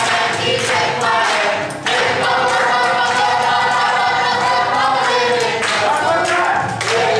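A group of children singing a camp song together in unison, with a long held note in the middle and hand clapping along.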